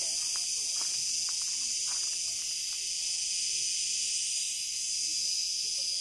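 Cicadas singing: a steady, unbroken high-pitched buzz.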